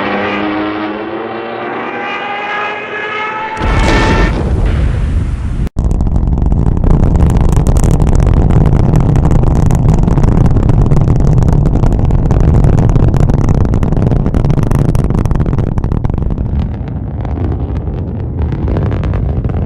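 A loud wartime machine sound: a pitched whine rising steadily for about three and a half seconds. It then breaks suddenly into a heavy, steady engine-like rumble with crackling that runs on.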